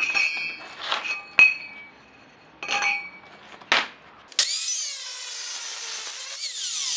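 Metal pipes knocked and set down on tile, clinking and ringing briefly several times. About four seconds in, an electric cut-off saw starts cutting through steel pipe, a loud steady grinding shriek that dips in pitch as the blade takes the load.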